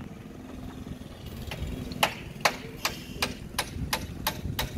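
A low engine hum, with a run of sharp, evenly spaced knocks starting about two seconds in, about three a second, like hammering.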